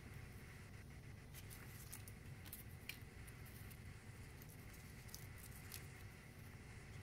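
Near silence over a low room hum, with faint rustles and light clicks of paper cut-outs being handled and pressed onto card.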